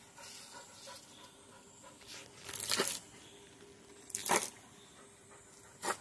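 Chained dog barking three short times, about a second and a half apart. The first bark comes as a quick cluster.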